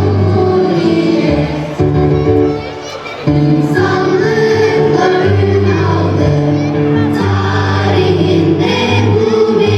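A choir of students singing with instrumental accompaniment. The sound dips briefly about two and a half seconds in.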